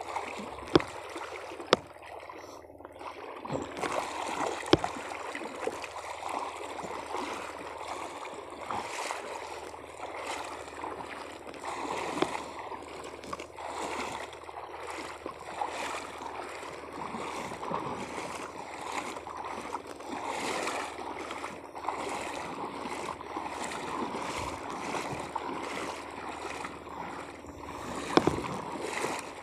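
Shallow water sloshing and swishing around someone wading across a reef flat. A few sharp clicks come in the first five seconds and another near the end.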